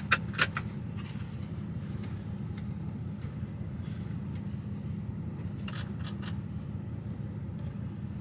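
Diesel engine of a DAF XF truck idling steadily, heard from inside the cab. Sharp clicks of switches on the overhead console: two right at the start, then a few about six seconds in as the cab lights are switched off.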